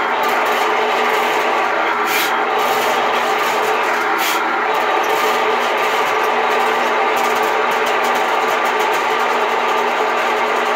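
Ridgid K-60 sectional sewer machine's electric motor running steadily as it spins 7/8-inch cable down a clogged drain line, with a few brief clicks about two and four seconds in.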